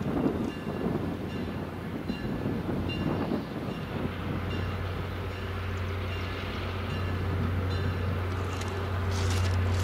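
EMD FL9 diesel locomotive pulling a passenger train slowly past, its engine making a low, steady drone that grows louder in the second half as it draws near.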